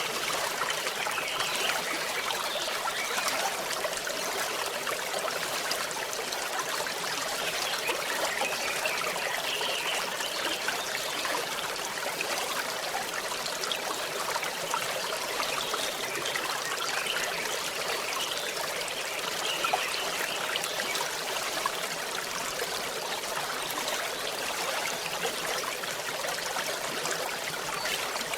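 A stream of water trickling and running steadily.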